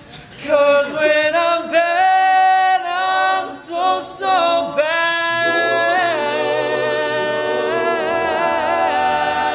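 Men's a cappella group singing: a solo voice sings a bending melodic line without clear words over held backing harmonies. A low bass part comes in about five seconds in.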